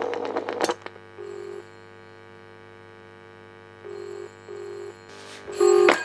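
Rotary dial of a GPO Loudspeaking Telephone No. 2A clicking back at about ten clicks a second as a digit is dialled. Then the British double-beat ringing tone plays through the phone's loudspeaker in short pairs of bursts, over a steady slight hum from the set. A louder tone burst comes near the end.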